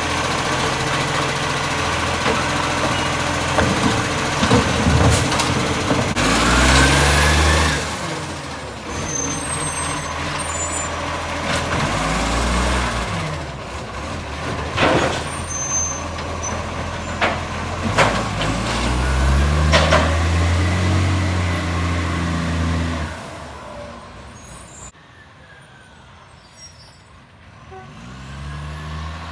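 Garbage truck engine revving up and down about three times through a leaking exhaust that makes it blast loudly, with short sharp air hisses in between. The engine falls quieter near the end before picking up again.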